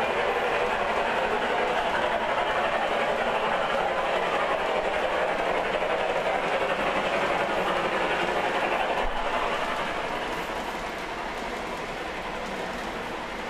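Large-scale model freight cars rolling past on track laid on a metal shelf layout: a steady rolling noise of many wheels on the rails, growing a little quieter about ten seconds in.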